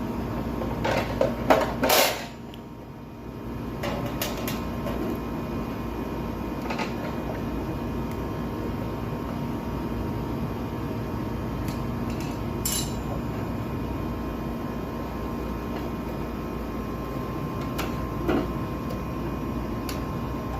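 Steady background hum with a few sharp knocks and clatters, the loudest two close together about a second and two seconds in, and fainter ones scattered later.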